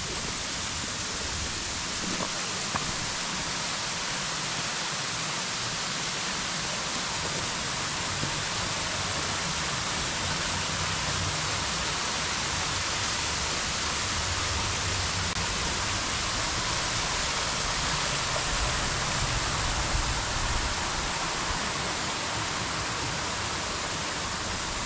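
Waterfall: a steady, dense rush of falling water, with the low rumble swelling a little about three quarters of the way through.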